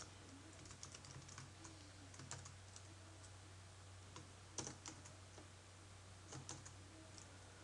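Faint computer keyboard typing: irregular single keystrokes, with a couple of louder key presses past the middle, over a steady low hum.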